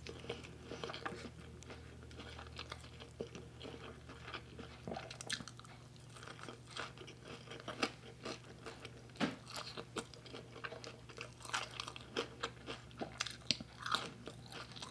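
A person chewing sticky rice and steamed cod roe eaten by hand, with many short wet mouth clicks and smacks.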